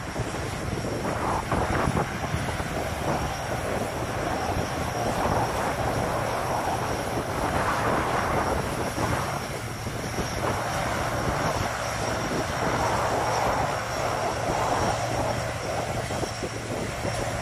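C-130 Hercules four-engine turboprops taxiing past one after another: a steady turbine whine over a propeller drone, swelling and easing as each aircraft goes by.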